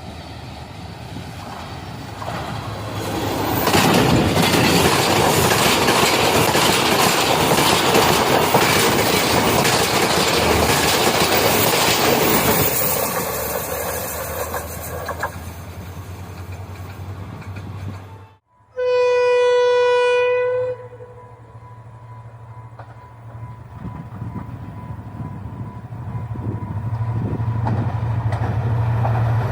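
A diesel-hauled express train passing at speed, its wheel and rail noise building loudly from about three seconds in, then fading. After a cut comes one long, steady-pitched locomotive horn blast of about two seconds, followed by a low diesel engine drone that grows louder near the end.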